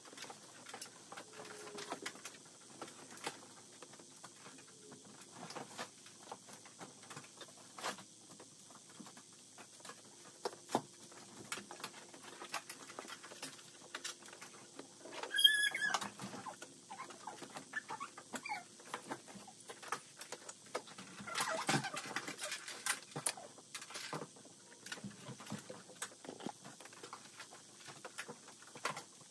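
Clothes being sorted and folded by hand: soft fabric rustling with many small scattered clicks and taps, growing busier a little past two-thirds of the way through. A brief high squeak about halfway is the loudest moment.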